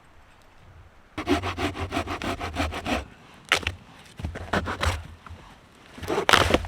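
Dry firewood being worked by hand: a quick, even run of rasping strokes for about two seconds, then a few separate sharp cracks, the loudest near the end.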